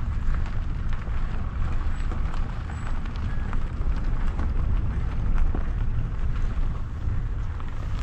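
Wind buffeting the microphone in a low, uneven rumble, with scattered crunching footsteps on a dry, stony forest path.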